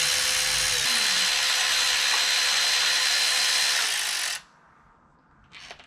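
A power tool running steadily with a high whine over a strong hiss, then stopping abruptly a little over four seconds in; used while tearing down an engine.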